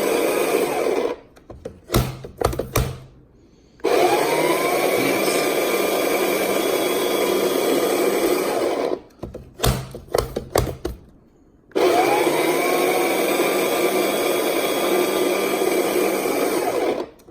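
Krups electric grinder grinding flaxseed in three bursts, each later burst opening with a rising whine as the motor spins up. A few sharp clicks and knocks fall in the short pauses between bursts.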